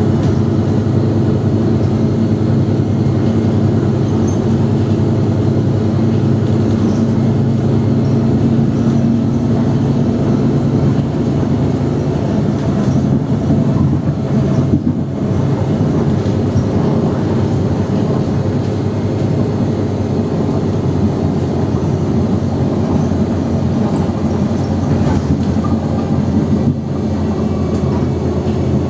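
Mercedes-Benz O345 Conecto G articulated bus's OM457hLA six-cylinder turbodiesel idling steadily while the bus stands still.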